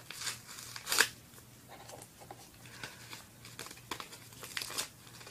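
A small paper envelope being handled and opened: crinkling and rustling of paper, with one louder crackle about a second in.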